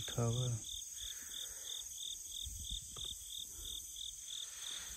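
Crickets chirping in an even rhythm, about three short high chirps a second, over a steady high insect hiss.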